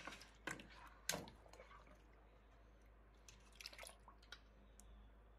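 Near silence, with a few faint short clicks and drips: a ladle stirring goat trotters in broth in a pressure cooker.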